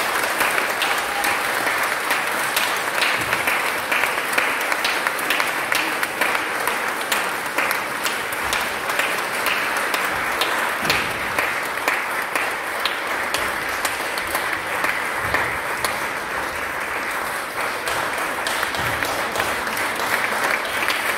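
Audience applauding, many hands clapping in a steady, dense patter that holds at an even level throughout.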